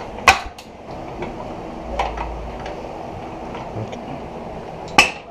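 Sharp metal knocks and clinks as a bolt is worked through a suspension arm's mounting on a car subframe: a loud knock just after the start, a softer one about two seconds in, and another loud one near the end.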